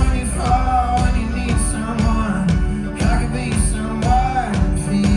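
Folk-rock band playing loud and live, with a kick drum beating about twice a second and voices singing over it.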